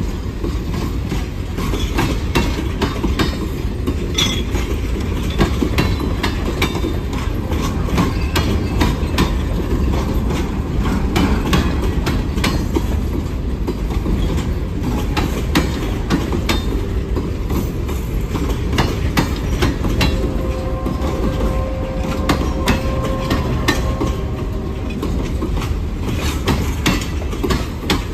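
Freight cars of a passing train rolling by: a steady low rumble of steel wheels on rail with frequent clicks and clanks over the rail joints. A faint wheel squeal comes in for a few seconds in the second half.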